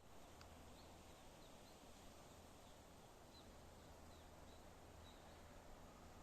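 Near-silent forest ambience with faint, short, high bird chirps repeating irregularly, about one to two a second.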